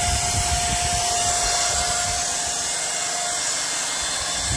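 Electric paint spray gun running, a steady hiss of air and paint spray with a thin motor whine that drops out about three seconds in.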